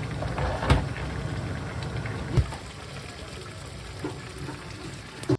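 Liquid sounds from a pot of soy-braised chicken cooking, a steady watery hiss with three sharp knocks like a utensil against the pot; the sound cuts off suddenly at the end.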